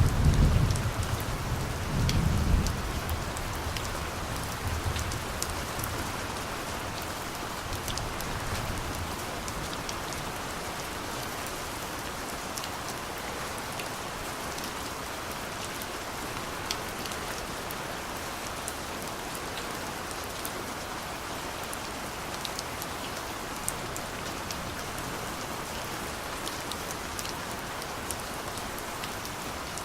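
Steady rain with scattered sharp drop ticks. A distant thunder rumble is heard in the first few seconds and fades out by about nine seconds in.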